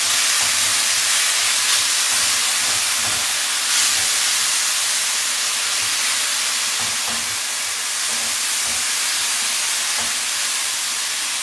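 Stir fry of noodles, tofu and vegetables with soy-based sauce sizzling steadily in a hot non-stick stir-fry pan while being stirred, with soft knocks of the utensil against the pan.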